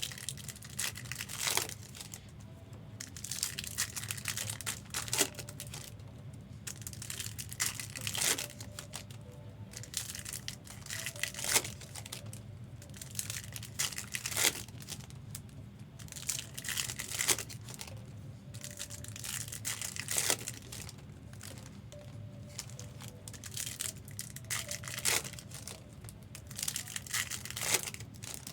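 Plastic and foil wrappers crinkling in short bursts every few seconds as trading card packs and sleeves are handled.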